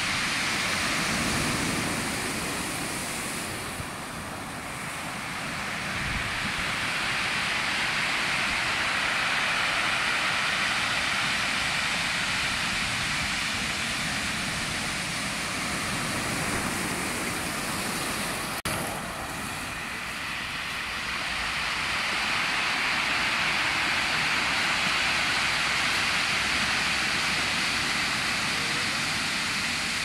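Ocean surf breaking and washing up a pebble beach: a steady rushing hiss that eases twice and builds again as the waves come in.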